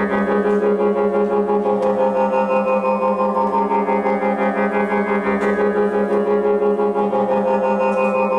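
Electronic drone music played live on tabletop electronics: a steady, many-layered held chord with a quick, even pulse in its loudness.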